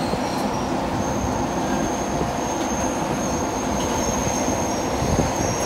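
White Pass & Yukon Route narrow-gauge passenger car running along the track: a steady rumble of wheels on rail, with a thin, high-pitched wheel squeal that sets in about a second in and holds as the train rounds a curve.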